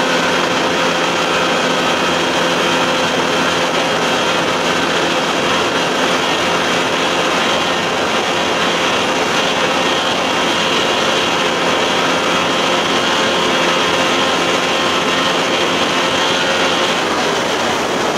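Johnson 60 hp two-stroke outboard running steadily at high speed, around 5000 rpm at wide-open throttle, over the rush of water and wind. Its pitch shifts slightly near the end.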